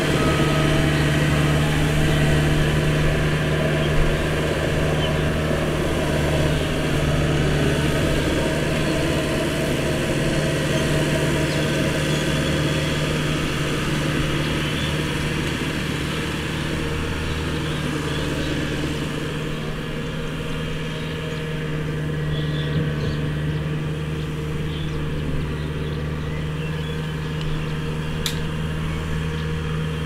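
Rice combine harvester's engine running steadily with an even, unchanging drone.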